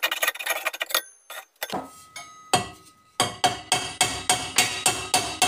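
Hammer striking the welded sheet-metal cones of a two-stroke expansion chamber to blend out their angles. Sharp metallic blows with a ring after each, irregular at first, then settling about three seconds in into an even beat of about three blows a second.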